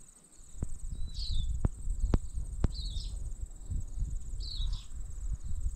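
Insects chirring steadily at a high pitch, with a short high call repeating every second or two. A few sharp clicks and a low wind rumble on the microphone sit underneath.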